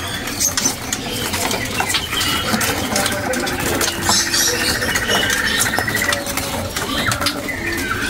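Caged songbirds chirping and calling, with a rapid trill from about three seconds in that lasts about three seconds. Scattered clicks and rattles come from the cage as a hand reaches in after a bird.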